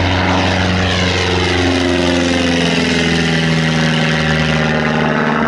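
Van's RV-4 light aircraft making a low pass overhead, its piston engine and propeller running loud and steady, with the pitch sliding slightly lower as it goes by.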